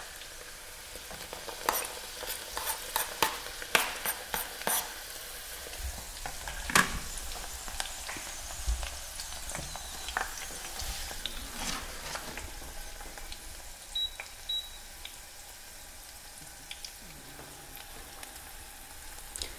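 Hot olive oil and cocoa butter bubbling and sizzling gently in a stainless steel pot as fresh calendula petals are added. In the first few seconds there is a run of sharp clicks and taps from a knife scraping petals off a cutting board into the pot.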